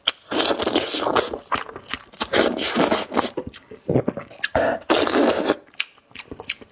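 Close-miked wet chewing and smacking on fatty braised pork knuckle, in three main stretches with short pauses and small clicks between them.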